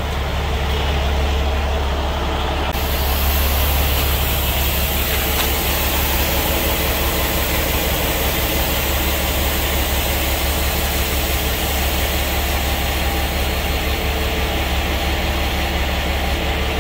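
Freightliner Cascadia semi tractor's diesel engine idling steadily. About three seconds in, a steady air hiss starts suddenly and keeps going: the air-ride suspension airbags being dumped to lower the tractor.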